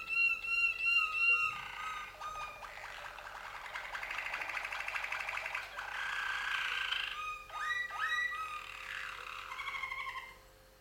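Domestic canaries singing a long, varied song of clear whistled notes, rapid rolling trills and quick repeated upswept notes. The song stops shortly before the end.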